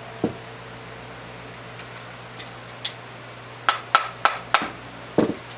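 A steel bullet mold being worked with a wooden mallet while casting lead bullets: sharp taps and clinks as the sprue is knocked off and the bullets are tapped out. One tap comes shortly after the start, a few faint clinks follow, then a quick run of about five knocks around four seconds in and a few more near the end.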